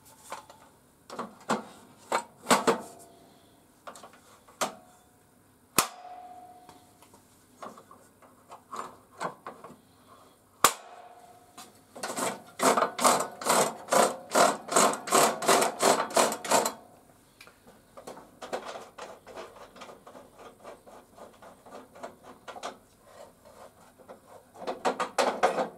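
Knocks, clicks and clatter of a table saw's rip fence being set onto the saw table and fitted to its rail, with a quick run of clicks lasting about four seconds in the middle.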